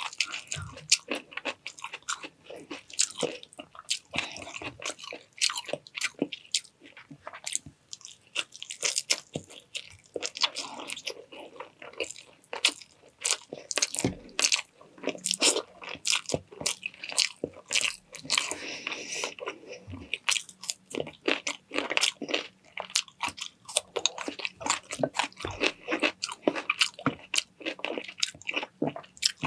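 A person chewing and crunching food close to the microphone, with quick, irregular bites and crunches throughout.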